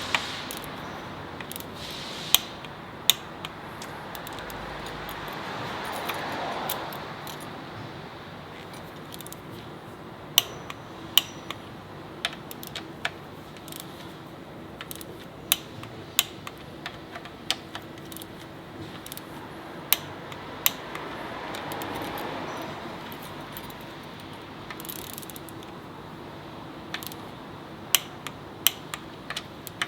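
Sharp metallic clinks and ticks of hand tools and small metal parts being handled in a car repair shop, scattered irregularly over a steady background hiss, with two soft swells of noise.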